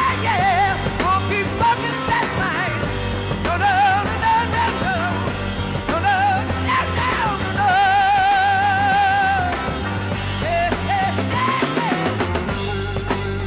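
A live hard rock trio of electric guitar, bass and drums plays loudly. A male lead voice sings high, wavering lines over the band and holds one long note about eight seconds in.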